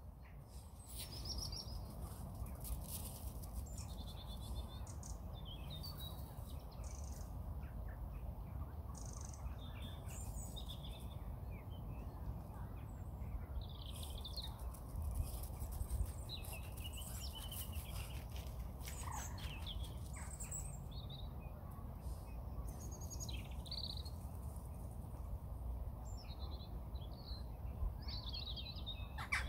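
Birds chirping and calling in short scattered notes, several overlapping, over a steady low background rumble.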